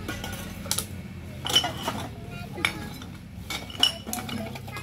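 Glass bottles clinking against one another as they are picked up from a pile and dropped into a plastic sack: several sharp clinks, about a second apart.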